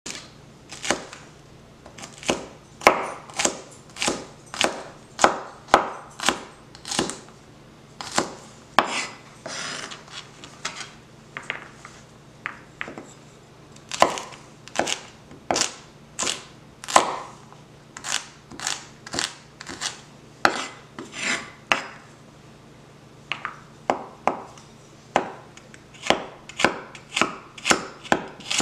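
Small broad-axe-shaped kitchen cleaver chopping vegetables on a wooden cutting board. It makes a steady run of sharp chops, about one or two a second, each one the blade striking the board.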